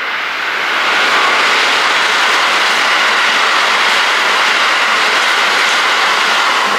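A train passing at speed close by: a loud, steady rush of wheel and running noise that builds over about the first second and holds.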